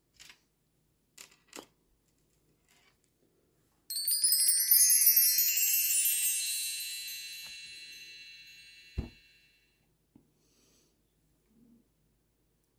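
A sudden cascade of tinkling chime tones, many quick strikes ringing together and fading away over about five seconds, like a wind chime. A few faint clicks come before it, and a single dull thump comes near its end.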